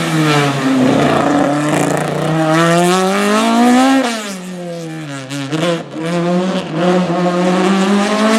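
A rally car's engine worked hard. The revs climb for about four seconds, drop sharply, dip once more, then pick back up and hold high.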